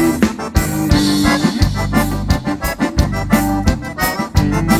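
Instrumental gaúcho dance music led by an accordion, over a bass line and a steady beat.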